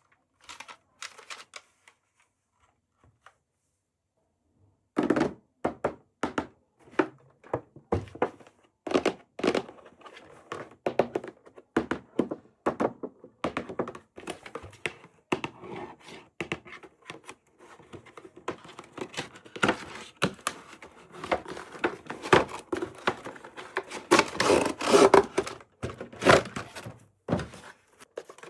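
Unboxing handling sounds: irregular taps, clicks and knocks of objects being picked up and set down, starting about five seconds in and growing busier near the end.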